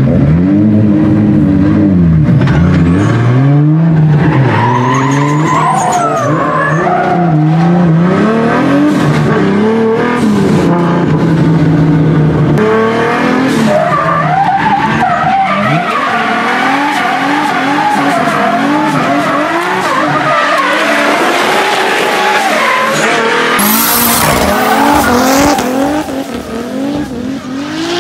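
Drift cars' engines revving hard, pitch climbing and dropping over and over as they slide, with tyre squeal from the spinning, sliding tyres. The squeal builds through the second half, and the level drops a little a couple of seconds before the end.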